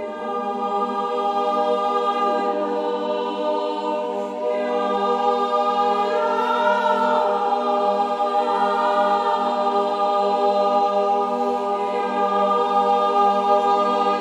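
Choir singing long, sustained chords, swelling in over the first couple of seconds, with an upper voice rising and falling in the middle.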